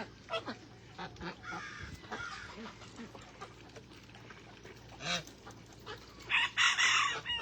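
Domestic ducks and geese calling in short, scattered honks and quacks, with a louder noisy burst lasting about a second near the end.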